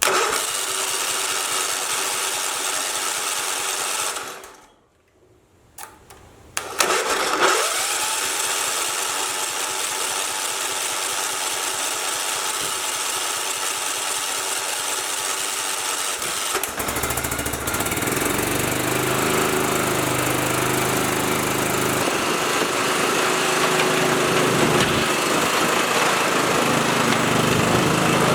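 Riding lawnmower engine running steadily. It drops away briefly about five seconds in, then runs again. From about seventeen seconds on, a deeper low rumble joins the engine.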